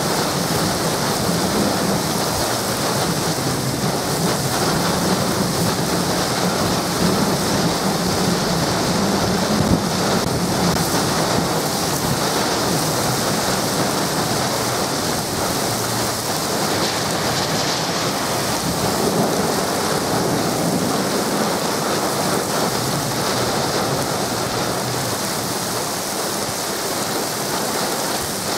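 Torrential thunderstorm rain with storm gusts: a steady, loud rush of heavy rain.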